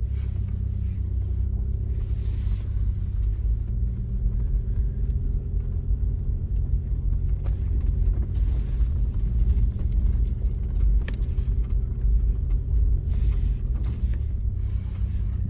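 Jeep Wrangler rolling slowly along a dirt trail: a steady low engine and tyre rumble with a few faint clicks.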